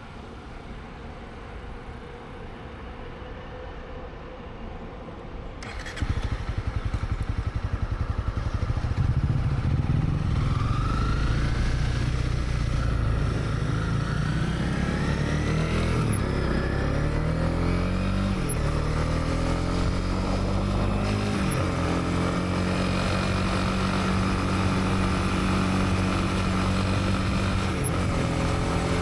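Honda CB300R single-cylinder motorcycle engine, quiet at first, then about six seconds in it opens up and pulls away. Its pitch rises and drops through several gear changes before it settles into a steady cruise.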